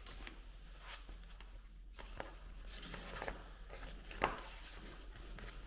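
A few faint clicks and taps over quiet room tone, the sharpest about four seconds in: small handling noises of a banner and a hand-operated grommet press being moved about on a table.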